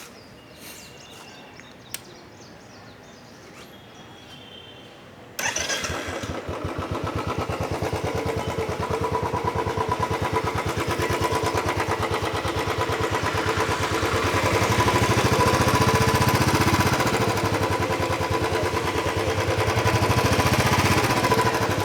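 Royal Enfield Classic 350's single-cylinder engine starting about five seconds in and then idling with the throttle closed, a steady rapid thump through its stock BS-IV silencer.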